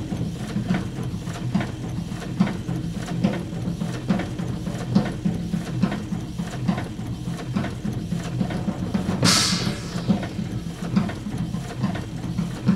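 Experimental music built from printing-press sounds: the mechanical clatter of the machinery repeated into a steady beat over a low hum. About nine seconds in, a hiss falls in pitch.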